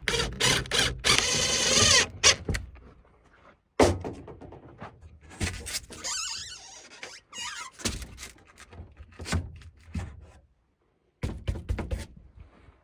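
A run of knocks and thunks, with a high squealing whine in the first couple of seconds; the sound cuts off suddenly several times.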